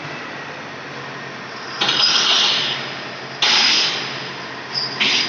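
Large coil-handling forklift's engine running steadily, with three sudden hissing rushes about a second and a half apart, each fading away over about a second.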